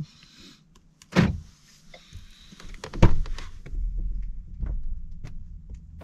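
Car door locks unlocking with a clunk about a second in, then a sharp click of a door latch about three seconds in. This is followed by scattered knocks and low thumps of someone moving around inside the SUV.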